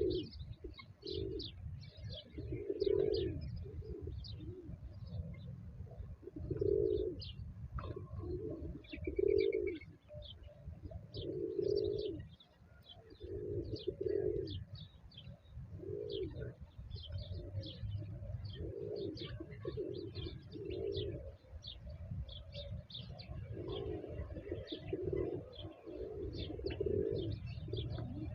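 Pigeons cooing over and over in short low phrases, with small birds chirping throughout, over a steady low rumble.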